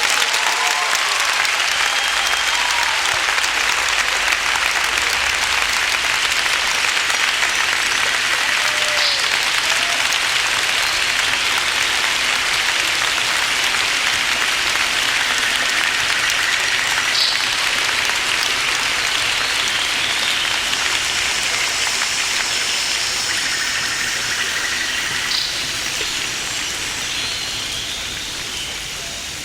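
Audience applauding steadily, then slowly dying away over the last few seconds.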